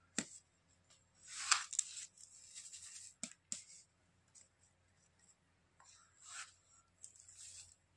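Dry sand trickling and shaking into a rolled paper tube, a soft gritty hiss in a few spells, with a couple of light taps a little past the middle as the tube is knocked to pack the sand down.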